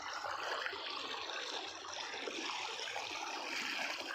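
Floodwater flowing over a submerged road, a steady rush of water.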